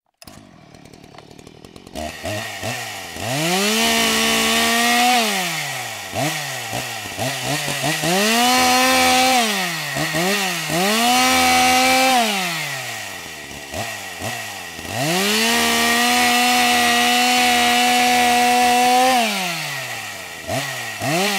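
Two-stroke chainsaw engine being throttled: it revs up and holds at high speed three times, about four seconds the longest, dropping back toward idle in between, with quick short throttle blips near the end. The first two seconds are only a faint low sound before the first rev.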